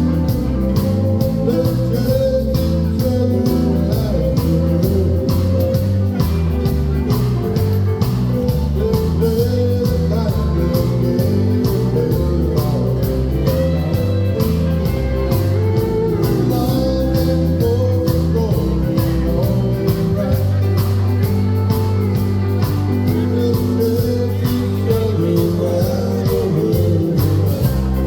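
A live band plays a country song, a singer over guitars, with a bass line stepping steadily underneath.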